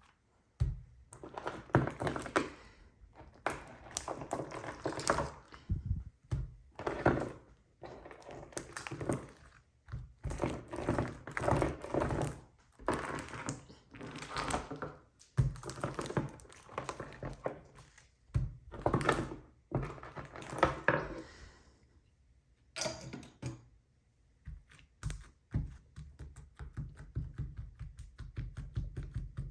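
Slime being squeezed and kneaded by hand: repeated bursts of sticky crackling and popping, each a second or two long, with short pauses between. A steady low beat comes in near the end.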